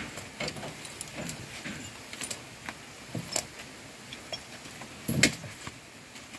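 Steel tyre chain clinking and rattling as it is handled and pulled around a truck's rear tyre while being fitted for grip in mud, with scattered sharp clinks at irregular moments and one louder clank about five seconds in.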